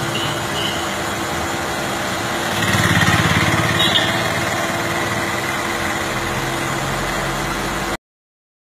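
A small engine running steadily over a noisy background, louder for about a second and a half around three seconds in, then cut off abruptly near the end.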